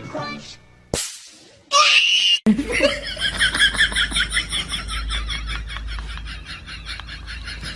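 High-pitched laughter: a fast run of repeated pulses, about five a second, that goes on for about five seconds after a short loud burst about two seconds in.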